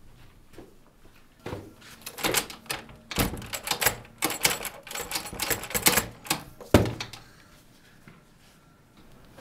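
A metal lever door handle is rattled and yanked again and again, the latch clacking in quick, uneven bursts. It ends with a heavier thud about seven seconds in.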